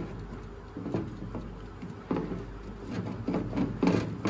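Wooden spatula scraping and pushing scrambled egg across a ridged non-stick grill plate in irregular strokes, louder near the end. The egg has been cooked without oil and is sticking to the plate.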